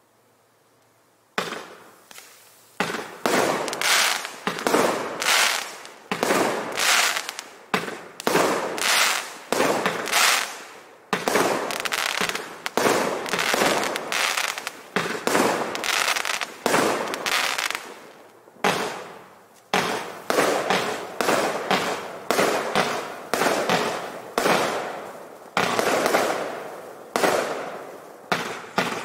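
Panda Fireworks 'Mad Science' EP3230 44-shot fireworks cake firing shot after shot, about one or two a second. Each shot is a sharp bang that fades quickly. It starts about a second and a half in.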